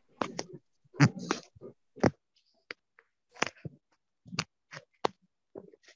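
A string of about a dozen short, irregular clicks and knocks, some with brief scraps of sound between them.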